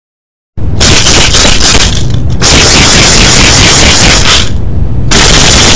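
Maracas shaken in a rapid, continuous rattle, very loud, starting about half a second in.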